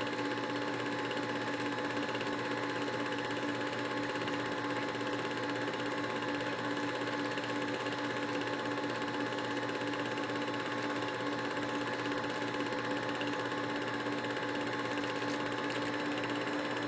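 Film projector running, a steady fast mechanical clatter with a constant hum under it.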